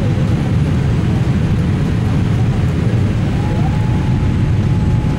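Cabin noise inside a Boeing 787-8 airliner: a loud, steady, low rumble of the engines and airflow. A faint high whine rises and then holds from about three and a half seconds in.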